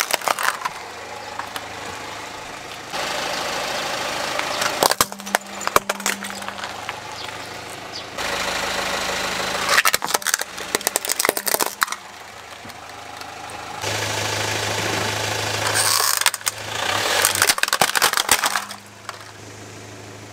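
A car engine idling while its tyre rolls over toy vehicles. About every five seconds there is a burst of sharp cracking and crunching as a toy breaks apart under the wheel.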